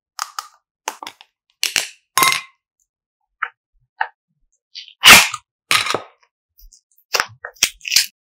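Short, sharp plastic clicks and cracks from a small hexagonal candy box as its lid comes off and the yellow clay inside is pried out, the loudest crack about five seconds in.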